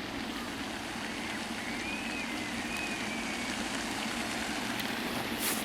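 A stuck truck's engine running steadily as it tries to climb an icy hill, with a faint wavering high squeal for a couple of seconds in the middle.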